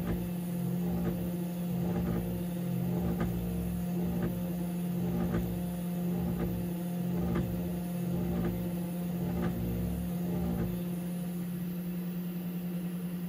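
SainSmart Genmitsu 3020 Pro Max desktop CNC router's spindle running at a steady pitch as the end mill orbits around a brass ejector pin, shaving it down toward flush, with a light tick about once a second as the cutter comes round.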